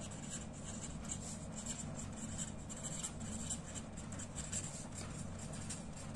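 Faint scratching of a pen on paper in a run of short strokes as words are written out by hand, over a low steady hum.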